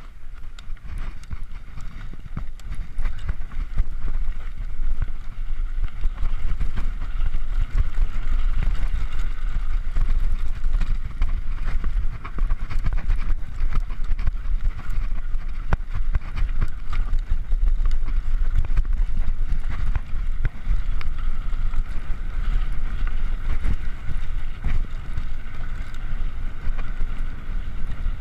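Wind buffeting the microphone of a handlebar-mounted camera on a mountain bike riding down a rough dirt singletrack, with a steady low rumble and many small clicks and rattles from the bike going over bumps. It grows louder over the first few seconds and then holds.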